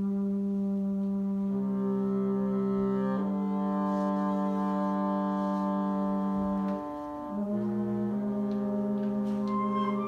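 Small live instrumental ensemble playing slow, sustained chords: a low note held under higher parts that change every second or two, with a brief drop in loudness about seven seconds in.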